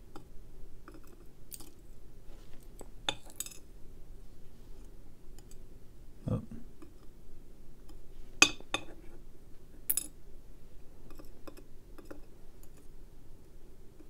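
Small metallic clicks and clinks as lock pins are worked out of a euro cylinder's core with a steel tool and set in an aluminium pin tray. The ticks are scattered and irregular, with the sharpest one about eight seconds in.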